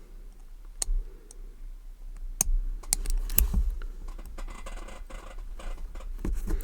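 Small metallic clicks and scratching from an Abus 83/45 padlock's interchangeable core being worked by hand, a pin held pressed in while the stubborn core is forced to turn back the opposite way. The clicks are irregular, with a busier patch of light clicking past the middle.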